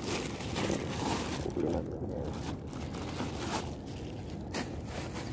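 Plastic shopping bags rustling and crinkling as they are handled, in irregular bursts.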